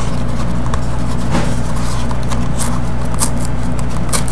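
A 5x7 'Dare to Tear' trading card being picked at and torn open by hand, giving a few short paper crackles. Under them runs a loud, steady electrical hum.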